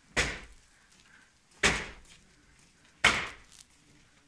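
Three sharp knocks or thuds at an even pace, about a second and a half apart, each dying away over half a second.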